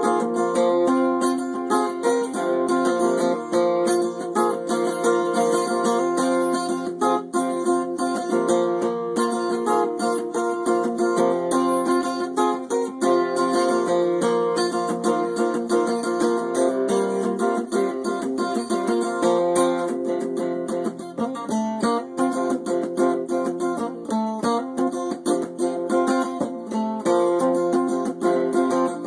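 Acoustic guitar with a capo, strummed steadily in a continuous rhythm of chords.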